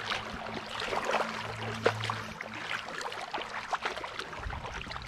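Shallow creek water splashing and trickling, with irregular sharp splashes.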